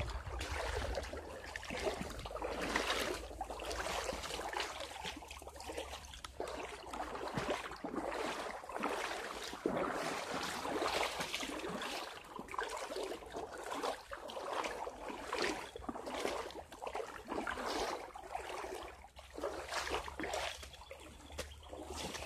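Footsteps sloshing and crunching through a shallow creek bed in an uneven walking rhythm, with water trickling and splashing around them. A low rumble from handling the camera sits underneath.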